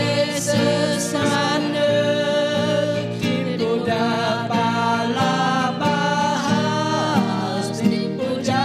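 A small group of men and women singing a Christian hymn in Bidayuh together, accompanied by an acoustic guitar.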